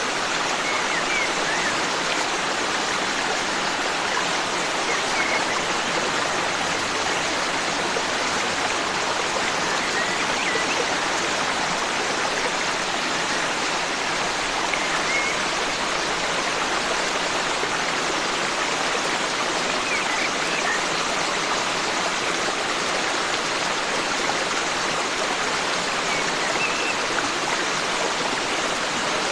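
Forest stream running steadily, a continuous rush of flowing water, with faint short bird chirps now and then.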